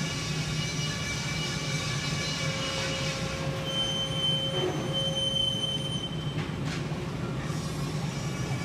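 Steady hum of factory machinery with several faint steady tones. About four seconds in, a high-pitched squeal starts and runs for roughly two and a half seconds, with a brief break.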